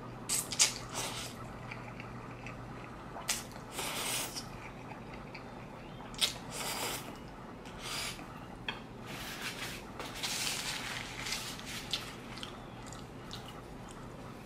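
Close-miked eating sounds of spaghetti with meat sauce: wet chewing and slurping in irregular bursts, with a few sharp clicks along the way.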